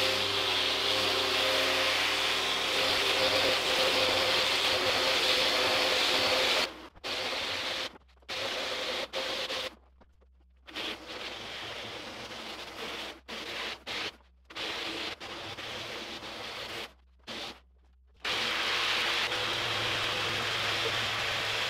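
Handheld random-orbit sander with dust extraction sanding the epoxy-and-fiberglass interior of a wooden kayak hull: a steady hiss with a faint motor hum. In the middle the sound gets quieter and is broken by several abrupt silent gaps, then the full sanding noise returns near the end.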